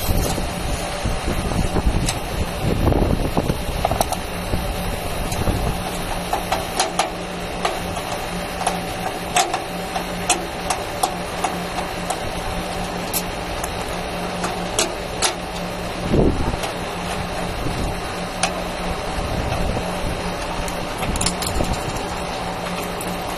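Metal hand-tool clicks and taps, one every second or so, from work on an air-conditioner outdoor unit's service valve, over a steady machine hum. Low rumbles come in the first few seconds and again about sixteen seconds in.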